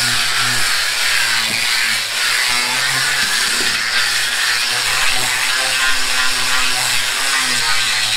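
A 5-inch Makita angle grinder fitted with a sanding disc runs continuously, its disc grinding old paint off painted timber weatherboards. The sound is a steady motor whine under a rough, rasping abrasive noise, wavering a little as the disc's pressure on the boards changes.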